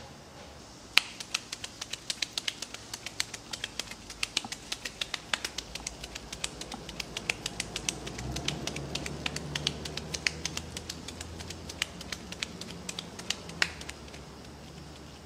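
A ball of ground meat for hamburg steak being slapped from one gloved palm to the other to knock the air out of the patty: quick, sharp slaps several times a second, starting about a second in and stopping near the end.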